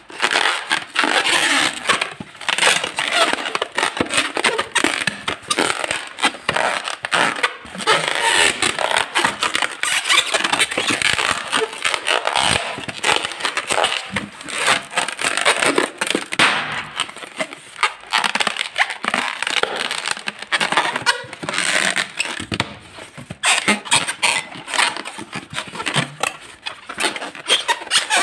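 Inflated latex modelling balloons twisted and squeezed by hand, the rubber squeaking and rubbing against itself in a dense, irregular stream.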